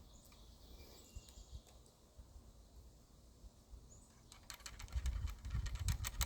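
Quiet outdoor ambience with a few faint bird chirps. About two-thirds of the way in, a run of rustling and light clicking with a low rumble starts and is the loudest sound.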